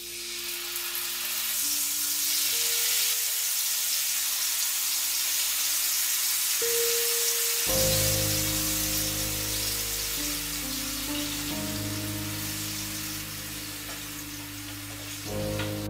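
Marinated chicken pieces sizzling as they fry in hot vegetable oil in a pan; the sizzle starts suddenly as the first piece goes in and keeps on steadily. Soft piano music plays underneath, louder from about halfway.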